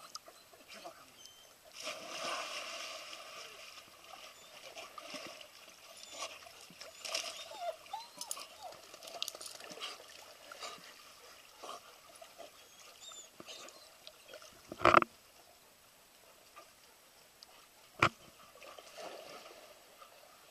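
Splash as a dog goes into a swimming pool about two seconds in, then water sloshing and small splashes as it swims. Two short, sharp, loud sounds come a few seconds apart later on.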